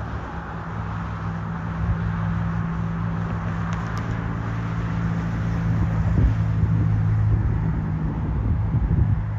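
Wind buffeting the microphone in gusts, strongest about six and nine seconds in, over a steady low hum and an even distant rushing roar from the approaching McDonnell Douglas MD-11 trijet's engines.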